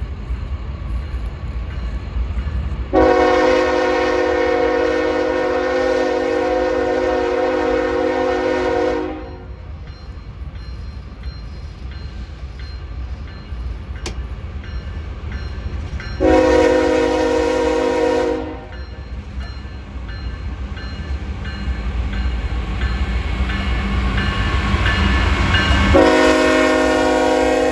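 CN freight train's diesel locomotive horn: one long blast, a short one, then another long blast starting near the end, over the low rumble of the approaching train, which grows louder toward the end.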